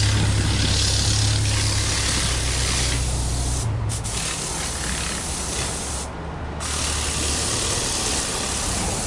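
Turbocharged EJ20 flat-four of a Subaru Legacy tuned by STi, idling at the exhaust with a steady low hum and a constant hiss over it. The engine's hum drops away about four seconds in, leaving mainly the hiss.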